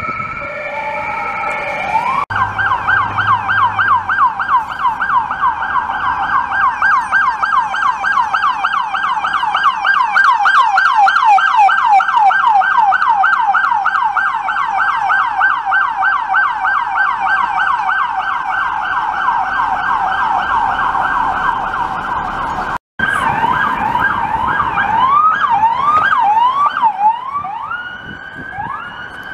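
Electronic emergency-vehicle sirens on responding police vehicles. A brief steady tone gives way about two seconds in to a fast yelp, a pitch rising and falling several times a second, which runs for about twenty seconds. After a short dropout near the end, slower, irregular rising and falling sweeps follow.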